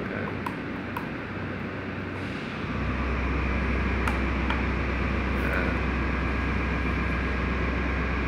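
A few light clicks of the REX-C100 temperature controller's front-panel buttons being pressed, over a steady low hum and background noise that gets louder about three seconds in.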